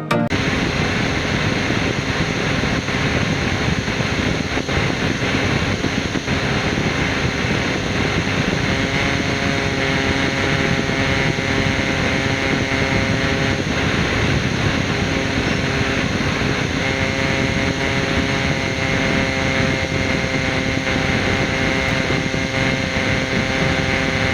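Small portable mini air conditioner's fan running steadily: a loud, even rush of air with a faint steady hum and whine in it.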